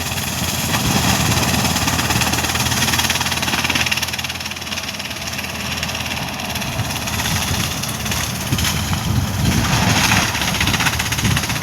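Swaraj 744 FE tractor's three-cylinder diesel engine running steadily, easing off a little in the middle and picking up again near the end.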